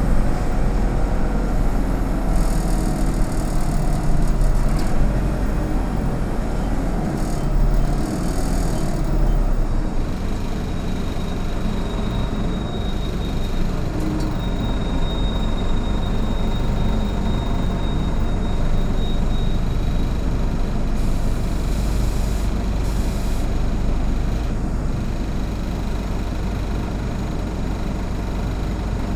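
Autosan Sancity M09LE city bus under way, heard from inside: a steady rumble of engine and road noise. For about ten seconds midway, a thin high steady tone sounds over it.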